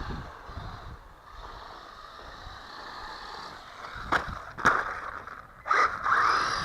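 Small electric RC car running: motor whine and tyres rolling on hard ground, with two sharp knocks about four seconds in and a louder rush of tyre noise near the end.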